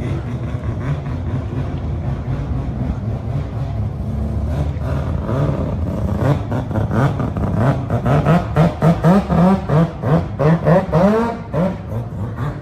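Car engine running, then revved in a quick series of throttle blips from about six seconds in, the pitch rising and dropping two or three times a second.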